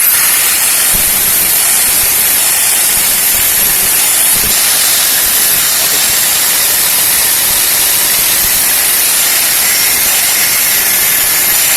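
Power tool's abrasive cutting disc spinning up and cutting through steel: a loud, steady hissing grind with a short rising whine as the motor comes up to speed at the start.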